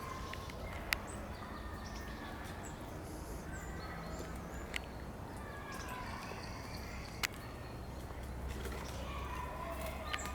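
Forest ambience: faint birds chirping over a steady low rumble, with three sharp clicks.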